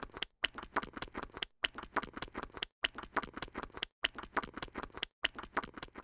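Rapid, dry clicking like typing, in stretches about a second long that break off with a short silent gap roughly every 1.2 seconds, as in a looped sound effect.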